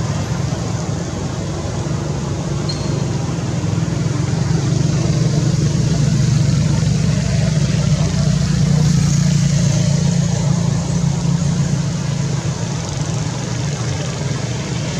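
A motor vehicle's engine running steadily, a low hum that swells a little midway and eases again.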